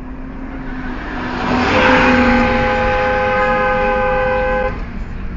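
Car horn held in one long blast of about three seconds, starting a little under two seconds in, over the low rumble of the car and traffic.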